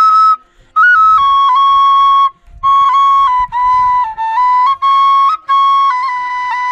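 Solo wooden flute, played by mouth and held upright, playing a simple melody of notes that step up and down and are sometimes held. The phrases break for a breath twice, about half a second in and just past two seconds.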